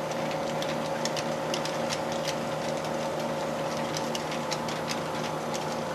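HO scale model train with Soo Line GP30 and F-unit model locomotives running past: a steady electric motor hum with several held tones, over light, irregular clicking.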